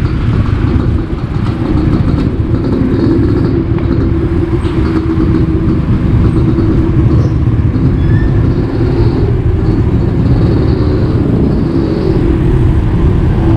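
Street traffic heard from a moving bicycle: the engine of a car just ahead and other motor traffic, over a steady low rumble.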